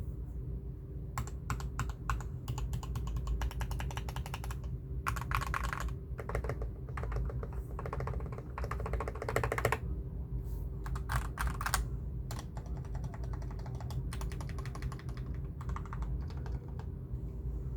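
Typing on a GK61 60% mechanical keyboard with Gateron Ink Black linear switches lubed with vaseline, YUNZII Milk keycaps and a double-layer foam mod, giving a muted 'thock'. Fast runs of keystrokes come in bursts with short pauses between them.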